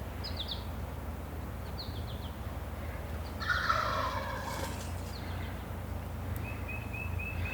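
A wild turkey gobbler gobbles once, about halfway through. Small birds chirp briefly near the start, and a short row of high notes comes near the end.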